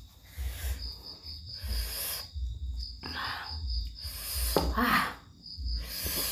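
Close-up eating sounds from a bowl of spicy laksa: slurping and chewing, with several short hissing breaths through the mouth, over a steady high-pitched whine.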